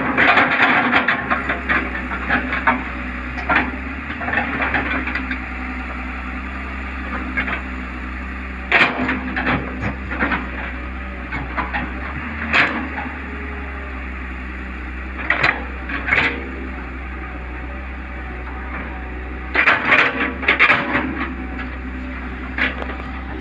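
TATA Hitachi 210 excavator's diesel engine running steadily as the machine digs, with sharp knocks and clanks from the bucket and arm working into the soil: a cluster at the start, single knocks spread through the middle, and another cluster near the end.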